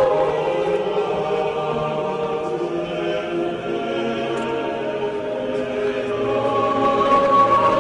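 Choral music: a choir singing slow, long-held chords, with a higher note entering near the end.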